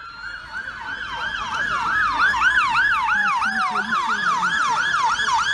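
Emergency vehicle siren in a fast yelp, its pitch sweeping up and down about three to four times a second, growing louder over the first two seconds.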